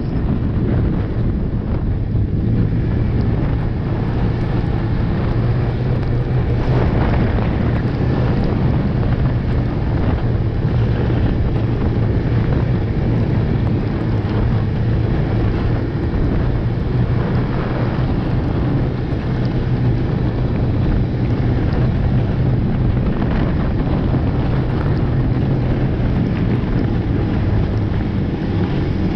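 Snowmobile engine running steadily as the sled rides along a snowy trail, with a constant low drone. Wind noise on the microphone mixes in.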